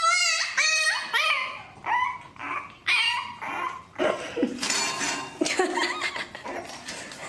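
French bulldog puppy whining and yelping, a string of short high cries with a wavering pitch, loudest in the first few seconds and trailing off toward the end.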